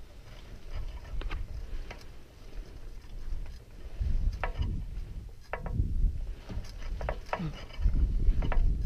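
Skis and poles on steep, firm snow: sharp scrapes and clicks about once a second as a skier makes tight jump turns, over a low rumble of wind on the microphone.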